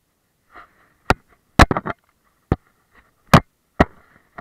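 Handling noise on the camera: about half a dozen sharp, loud knocks and taps at uneven intervals as fingers bump and rub against the camera body near the microphone, with faint rustling between them.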